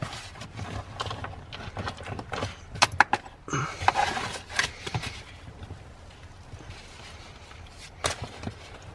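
Plastic Maxi-Cosi Mico AP infant car seat base being gripped, pushed and wiggled on a car's back seat, with knocks, clicks and strap rustling as its tightness is checked. The knocks are thickest in the first half, and there is a sharp click near the end.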